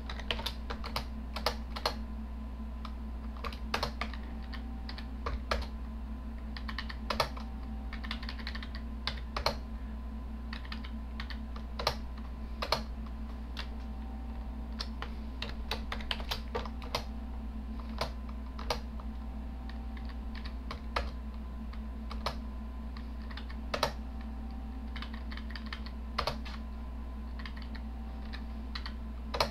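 Computer keyboard keystrokes: irregular single clicks and short runs of key presses, with pauses between, over a steady low hum.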